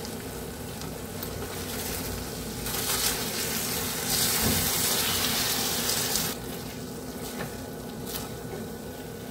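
Spiced tomato-onion gravy with ivy gourd sizzling and bubbling in a kadai as it cooks down, stirred with a spatula. The sizzle swells louder for about three seconds in the middle, then settles back.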